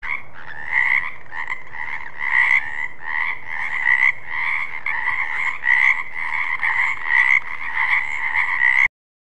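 Frogs croaking in a dense, continuous chorus, with louder croaks standing out about twice a second. It cuts off suddenly near the end.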